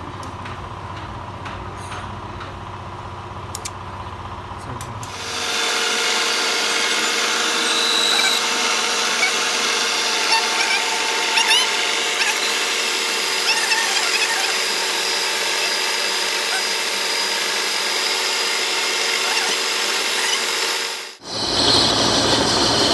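Metal lathe turning a steel truck transmission input shaft. For the first few seconds there are only light clicks of tools being handled. Then, about five seconds in, the cut begins: a loud, steady machine whine made of several tones, with short squeaks of the tool on the steel. It breaks off briefly near the end and comes back.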